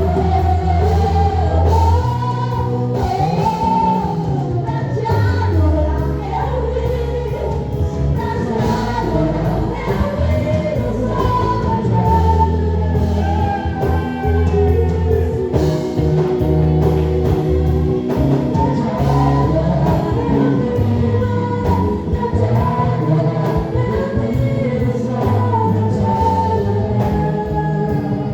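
Gospel worship song: voices singing a melody over a band with sustained bass notes and a steady beat.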